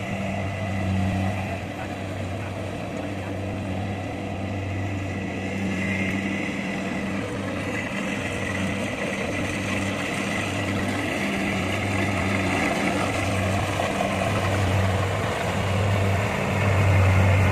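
Kubota rice combine harvester running steadily in the field, its engine giving a continuous low hum that swells a little near the end.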